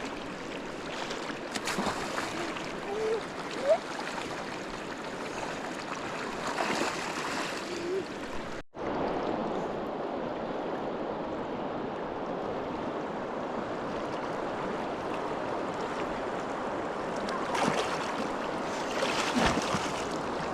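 River water rushing steadily, with a few brief knocks in the first few seconds. The sound drops out for a moment about nine seconds in, then the rush carries on.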